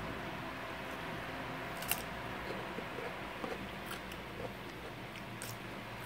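Someone picking salad out of a plastic container and biting into a raw cucumber slice: a few short, crisp clicks, the loudest about two seconds in, over a steady low background hum.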